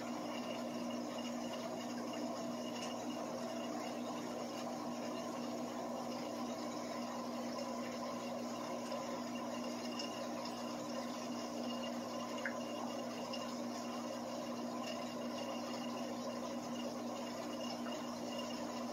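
Aquarium filtration running: a steady rush of moving water with a constant low hum underneath.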